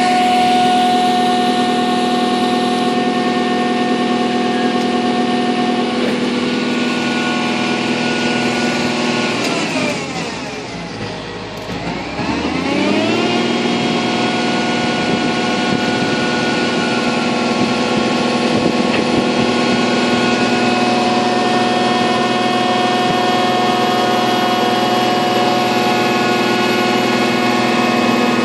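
Horizontal directional drilling rig's engine running steadily under load; about ten seconds in its pitch drops and the loudness dips, then it climbs back up to the same steady speed a few seconds later.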